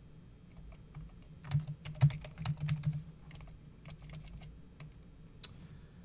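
Typing on a computer keyboard: a quick run of keystrokes, densest between about one and a half and three seconds in, then a few scattered taps that stop about five and a half seconds in.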